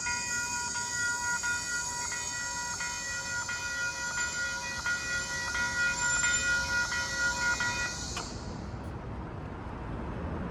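Caltrain commuter train braking into the station: a steady high multi-tone brake squeal with regular wheel clicks about every two-thirds of a second, cutting off about eight seconds in as the train comes to a stop, leaving a low rumble.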